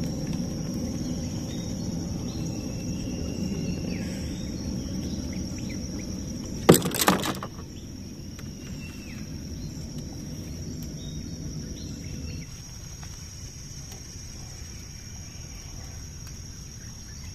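Steady high-pitched chirring of insects from the riverside forest, with a few faint bird chirps. About seven seconds in comes a brief clatter of several sharp knocks, the loudest sound, and a low rumble underneath fades out about twelve seconds in.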